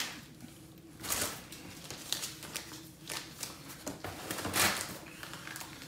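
Paper and cardboard rustling and scraping as items are handled and lifted out of a cardboard box, in several short bursts, the loudest a little over four and a half seconds in.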